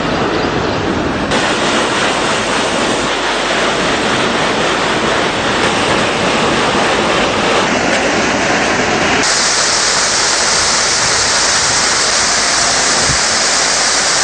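Rain-swollen waterfalls roaring: a loud, steady rush of falling water. The rush changes character abruptly a few times as one falls gives way to another, and turns brighter and hissier about two thirds of the way through.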